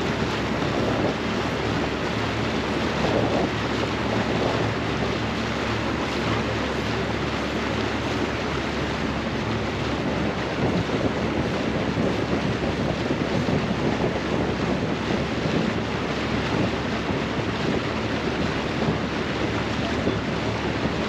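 Steady wind noise buffeting the microphone on a pontoon boat, with a faint low hum underneath through the first half.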